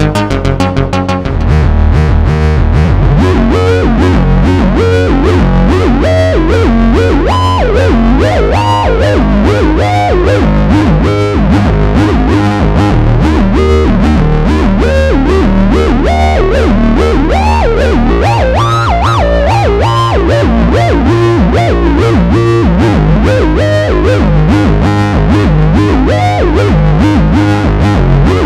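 Moog Source monophonic analog synthesizer playing a distorted, guitar-like lead line that bends and glides in pitch. Underneath runs a fast, evenly repeating bass pattern that gets louder about a second and a half in.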